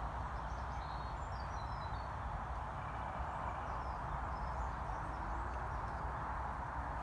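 Steady rushing outdoor background noise with small birds chirping here and there.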